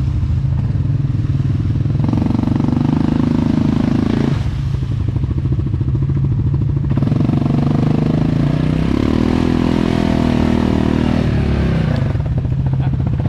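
Yamaha Grizzly ATV engine running at low speed while crawling over rocks. The revs rise and fall with the throttle, picking up about two seconds in and again from about seven seconds to near the end.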